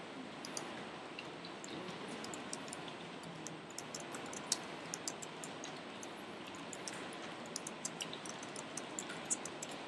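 Typing on a computer keyboard: a run of light, irregular key clicks over a steady background hiss.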